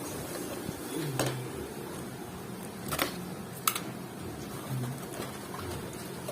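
A few sharp clicks and taps, about four in all, the loudest about three and a half seconds in, over a steady low background murmur.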